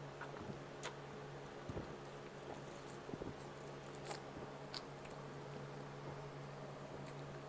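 Faint gulping and swallowing of a man chugging soda from a plastic bottle: a handful of soft wet clicks and gulps at uneven intervals, over a steady low hum.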